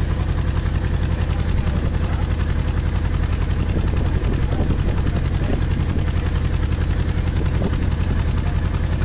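Passenger boat's engine running steadily, heard from on board: a loud, fast, even low throb with no change in speed.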